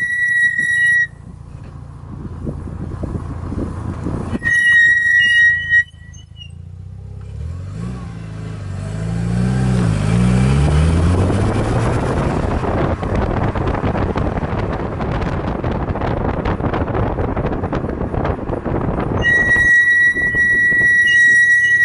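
Car brakes squealing: a steady, high-pitched squeal at the start, again briefly about five seconds in, and again through the last few seconds. In between, the engine revs through a few pitch changes as the car pulls away, followed by steady driving noise.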